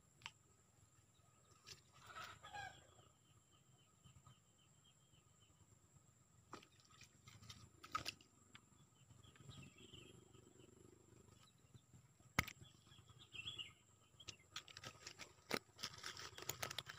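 Faint outdoor ambience with birds calling now and then. Scattered sharp clicks and taps run through it and crowd together near the end.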